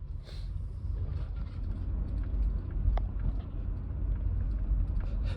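A low, steady rumble that grows a little louder, with a brief breathy hiss near the start and a single sharp click about three seconds in.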